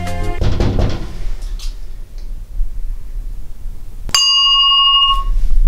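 A doorbell rings once about four seconds in: a single bright electronic ding with several clear pitches that starts sharply and dies away over about a second. Background music fades out in the first second.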